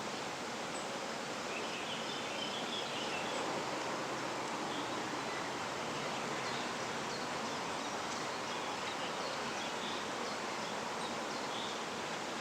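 Steady outdoor background hiss with a few faint, short high bird chirps scattered through it.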